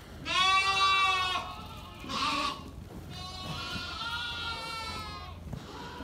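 Sheep bleating in a flock of ewes and lambs: one loud bleat near the start, a short, rougher call about two seconds in, then a longer, fainter bleat.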